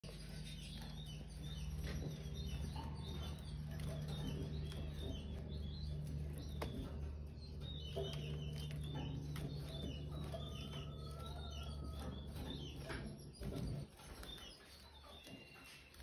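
Young canaries, about eight weeks old, chirping with many quick, short calls, with fluttering wing beats as they flit between perches. A steady low hum sits underneath and stops a couple of seconds before the end.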